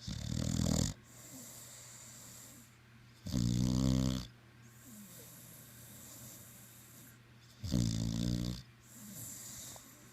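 Snoring: three loud pitched snores about four seconds apart, each just under a second long, with quieter breathy breaths out between them.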